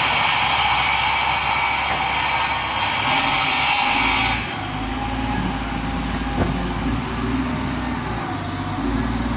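Bulldozer engine running, with a loud steady hiss over it that cuts off suddenly about four and a half seconds in.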